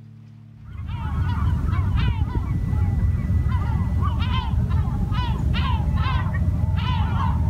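Many gulls calling over and over, their overlapping calls starting about a second in, with wind rumbling heavily on the microphone.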